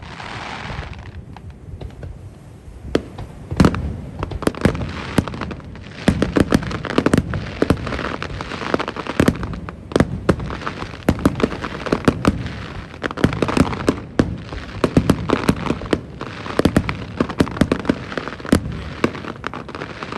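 Aerial fireworks bursting in rapid succession: many sharp bangs, several a second at times, with crackling between them.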